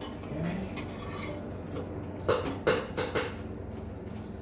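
Metal clinking on a gas stove's burner grate, three short knocks in quick succession past the middle, as a phulka is turned over the open flame, over a low steady background.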